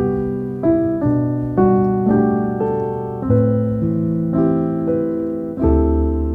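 Background piano music: gentle chords struck every half second to a second, each ringing and fading before the next.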